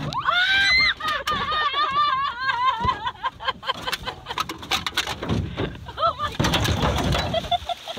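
A woman gives a high rising squeal, which breaks into quick, wavering laughter for a couple of seconds. Another short excited cry follows later, with a scatter of knocks and clatter near the end.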